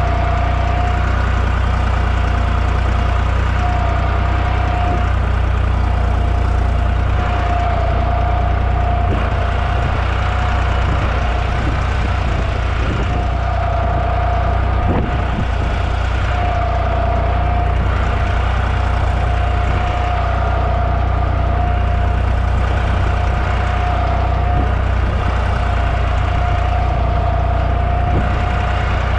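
Deutz-Fahr 55F tractor engine running at a steady speed while pulling a row cultivator, with a thin steady whine over the low engine sound.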